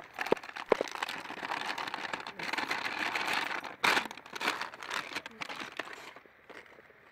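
Kitchen scraps (tea bags, peelings, salad greens) being tipped and shaken out of a scrap bucket onto a compost heap: rustling and crinkling, with a few sharp taps near the start and a louder rustle about four seconds in, dying away near the end.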